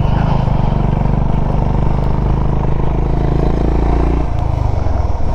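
Motorcycle engine running steadily while riding, its note changing about four seconds in.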